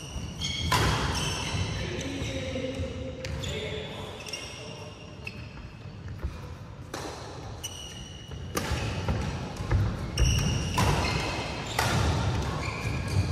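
Badminton play on an indoor court: a few sharp racket strikes on the shuttlecock, short high sneaker squeaks on the court mat and footfalls, busier in the second half.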